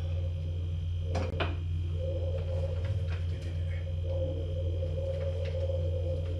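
Steady low machine hum with a fainter high whine over it, and a couple of light clicks a little over a second in.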